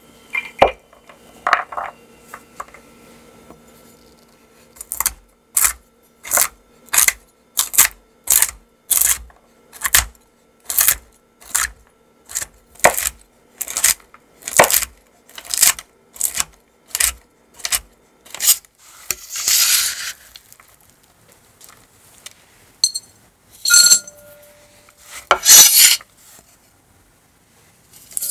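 Chef's knife chopping walnuts on a bamboo cutting board, sharp chops about two a second for over ten seconds, followed by a longer scrape of the blade across the board. Near the end a few ringing clinks of a glass bowl as the chopped nuts go in.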